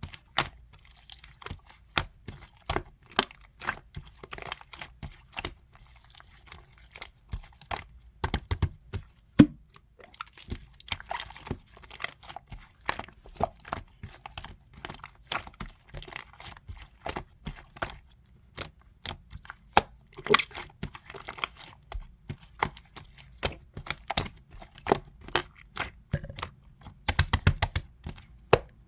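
Slime being squished and kneaded by hand, giving irregular sharp clicks and crackly pops several times a second.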